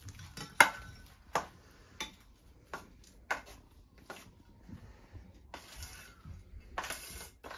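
Hand mixing a wet gram-flour dough in a stainless steel bowl: a run of sharp taps against the bowl, about one every two-thirds of a second, then two longer scraping sounds near the end.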